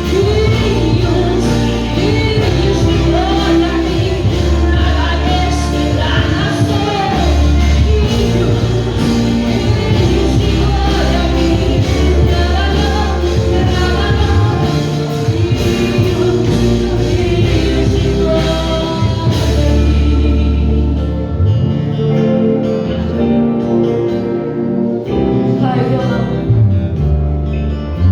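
Live church worship music: singing over a band with sustained low notes. About twenty seconds in, the bright top end and most of the singing drop away, leaving held instrumental notes.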